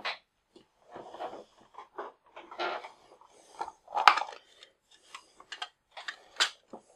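Handling noise as small parts and tools are picked up and set down: scattered light clicks, taps and short rustles, with a sharper knock about four seconds in.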